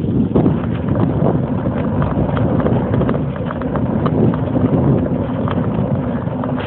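Riding noise from a bicycle climbing a road: a steady rumble of wind and road on the microphone, with a dense, irregular run of small knocks and rattles from the bike and camera.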